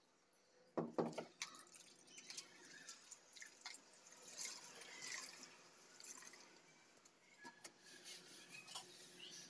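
Faint water dripping and splashing in a plastic bucket as hands work in it, with a knock about a second in and scattered small clicks.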